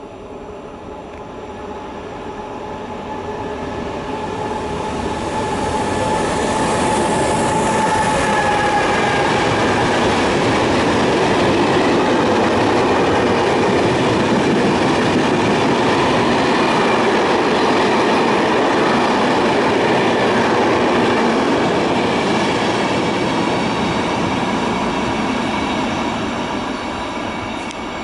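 A freight train hauled by an E.494 electric locomotive runs past with a long string of empty flat stake wagons: the steady rumble and clatter of wheels on rail, with clickety-clack from the wagons. It builds over the first six seconds, stays loud through the middle and begins to fade near the end.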